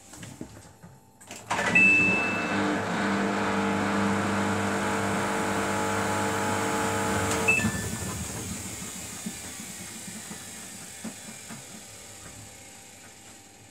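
Samsung front-loading washing machine's drum motor starts with a sudden steady electric hum and a brief high tone, runs for about six seconds, then cuts out. The drum coasts down with a fading whoosh.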